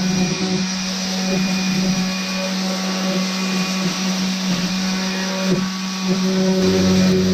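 Electric power tool motor running steadily at a constant pitch.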